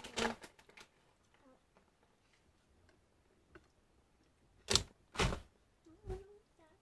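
Sharp knocks and bumps from the webcam or laptop being handled: one just at the start, then three more spread over about a second and a half after a quiet stretch.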